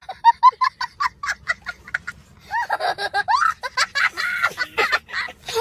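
A young child laughing hard: a quick run of short, high laughs, about four or five a second, then longer squealing laughs that rise and fall.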